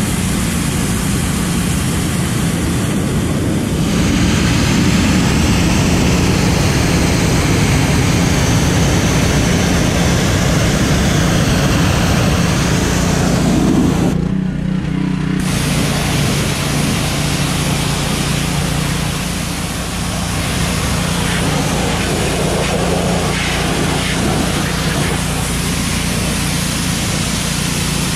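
Pressure washer running, its water jet blasting mud off the inside of a pickup truck's wheel well and tyre, over the steady hum of the machine. The spray stops for about a second and a half midway, then starts again.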